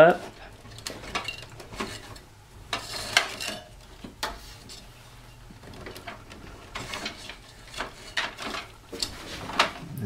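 Scattered light clicks, rattles and rustles of cables and a plastic connector being handled inside a desktop computer's metal case, as the motherboard power connector is worked loose by its latch.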